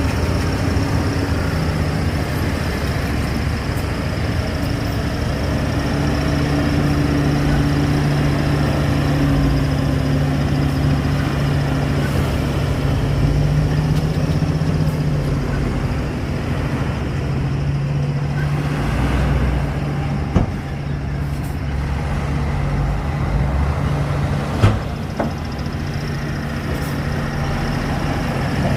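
Heavy diesel earthmoving machinery running steadily under load, its engine note shifting a little in pitch. Two sharp knocks come in the second half.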